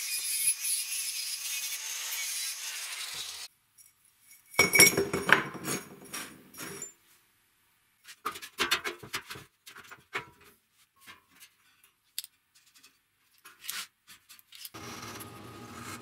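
Angle grinder with a cutting disc slicing through square steel tubing, a steady high hiss that stops suddenly about three and a half seconds in. Then loud metallic clanks and knocks, followed by scattered clicks as steel tube parts are handled and fitted. Near the end a drill press starts running with a steady hum.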